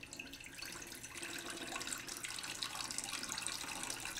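Tap water pouring in a stream into a steel bowl of rice, filling it with water so the rice can soak. The splashing grows louder over the first two seconds, then holds steady.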